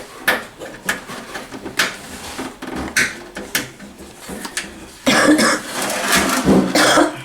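Scattered clicks, taps and knocks of hands working at a plastic sticker on a microwave's door to peel it off. A louder, rougher stretch of rasping noise comes about five seconds in.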